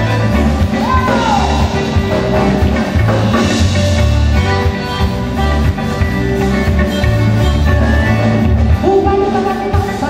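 Live band music: a piano accordion playing over bass guitar and a steady low beat, with a woman's singing voice coming in near the end.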